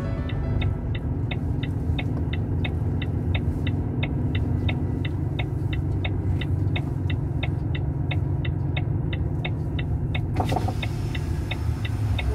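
Truck engine running at low road speed, heard from inside the cab, with the indicator relay clicking steadily at about three ticks a second. About ten seconds in, a louder rushing noise joins in.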